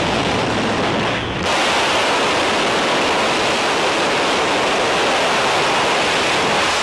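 Loud, steady rush of wind at an aircraft's open jump door in flight, buffeting the microphone. About a second and a half in, it becomes fuller and brighter and stays that way.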